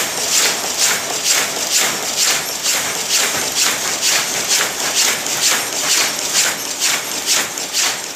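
Automatic wire-mesh (mosquito-net) weaving loom running, clattering in a steady, even rhythm of about two to three strokes a second.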